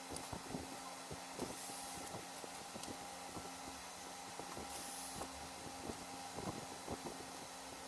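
Irregular light clicks and taps of tools and parts being handled during hand work on a power tool, over a steady low hum, with two short hisses, one about a second and a half in and one about five seconds in.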